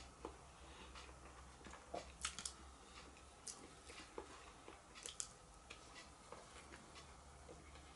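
Quiet eating: chewing and a metal fork clicking as it picks at food in a cardboard takeaway box, with a few sharper clicks about two seconds in and again about five seconds in.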